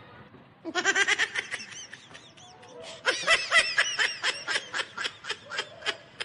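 Edited-in laugh sound effect: high-pitched snickering laughter in quick repeated ha-ha pulses. It starts just under a second in, breaks off briefly around two seconds in, then resumes in a longer run.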